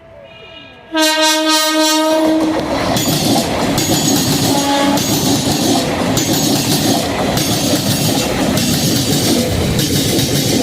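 Indian Railways train sounding its horn, one long loud blast about a second in and a short, fainter toot a few seconds later, then the train passing close with steady rhythmic wheel clatter over the rail joints.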